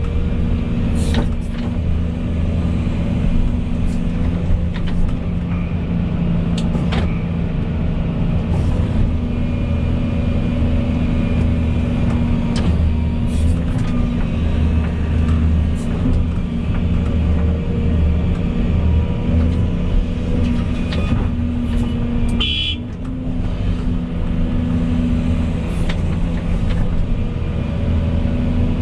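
Volvo EC220E excavator's diesel engine running steadily under load, with scattered clicks and knocks from the machine at work and a brief high squeak about three quarters of the way through.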